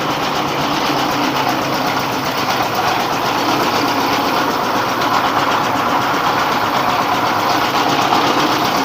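Rice mill running steadily: the husking (pecah kulit) machine driven by a 24 hp single-cylinder dompeng diesel engine, making a loud, even mechanical drone.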